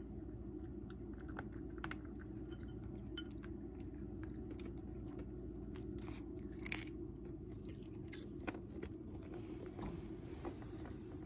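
A cat crunching dry kibble from a dish: scattered short crunches and clicks, one louder click about two-thirds in, over a steady low background hum.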